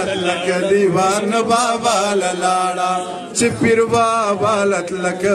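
A man reciting Pashto poetry in a drawn-out, chanting sing-song voice into a microphone, the lines held and wavering in pitch.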